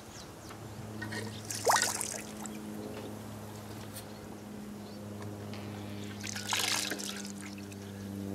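Water splashing and trickling from a hanging hand washstand into an enamel basin below, in two short bursts a few seconds apart, over a low steady hum.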